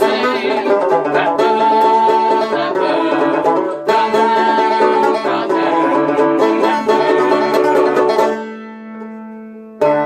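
Instrumental ending of a folk song on plucked string instruments. Fast, busy picking stops about eight seconds in and the last notes ring out and fade. One final chord is struck near the end.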